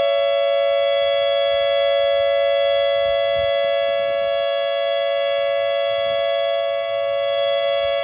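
Federal Signal Modulator 8032B electronic outdoor warning siren sounding its ThunderMod tone as a steady alert signal during a siren test. The tone holds a constant pitch, with no rise or fall, and stays loud throughout.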